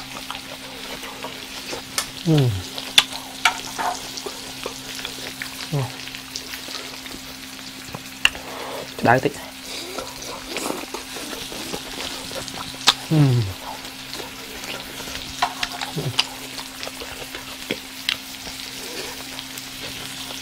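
Shrimp and vegetables sizzling steadily on a grill pan over a portable gas stove. Sharp clicks of chopsticks against the pan and bowls are scattered through it, along with a few short, falling voice sounds from the eater.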